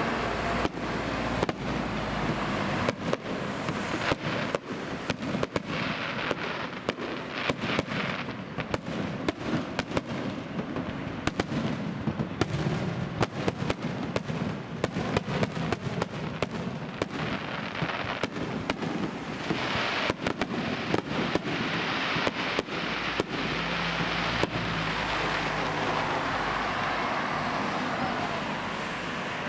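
Fireworks going off: a rapid, irregular run of sharp bangs and crackles that thins out after about 23 seconds, over a steady background rumble.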